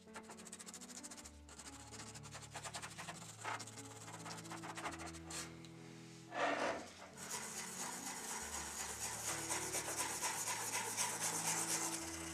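A stiff brush scrubs a die-cast model car body coated in paint stripper in quick rasping strokes, over background music with a slow bass line. A short, louder noise comes about six seconds in. After it the scrubbing gets faster and brighter.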